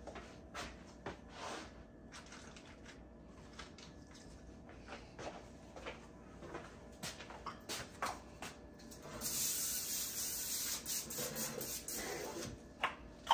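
Aerosol cooking spray hissing in one sustained burst of about three seconds, starting about nine seconds in, as it is sprayed onto foil-lined cake pans. Before it come scattered light clicks and knocks.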